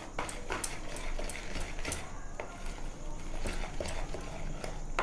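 Light, irregular clicks and taps of a utensil against a mixing bowl as cake batter is worked, with milk being added to loosen it.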